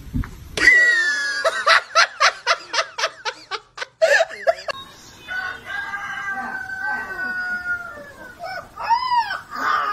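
Animal calls: a quick stuttering run of calls in the first few seconds, then a young puppy howling in long drawn-out notes, with a short rising-and-falling yowl near the end.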